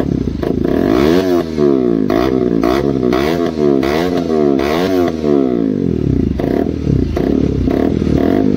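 KTM RC 200's single-cylinder engine running through an aftermarket SC Project silencer on a full-system bend pipe. It is revved in about six quick throttle blips, then drops back to a steady idle for the last few seconds.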